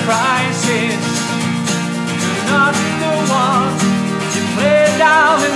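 Acoustic band playing live: a man sings a wavering melody in three phrases over picked acoustic guitar, with a steady high tick of a hand shaker about twice a second.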